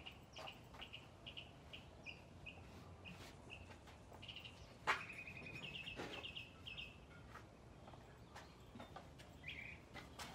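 A bird chirping with a run of short high notes, breaking into a quick trill about five seconds in, over quiet outdoor background noise. A single sharp tap, the loudest sound, comes about five seconds in.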